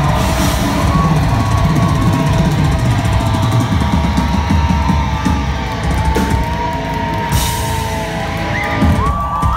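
Live industrial metal band playing loud through a venue PA, recorded from in the crowd: pounding drums and distorted guitars under held, gliding high tones. About nine seconds in the drums and low end drop out as the song closes, leaving a single held high tone ringing.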